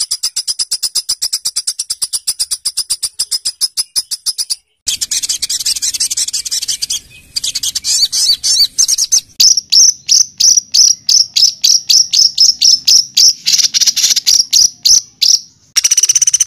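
A songbird singing a harsh 'tembakan kasar' song of rapid high-pitched notes. It opens with a fast rattling trill that breaks off a little before five seconds in. A denser rasping stretch follows, then from about nine seconds in a string of loud sharp notes about four a second.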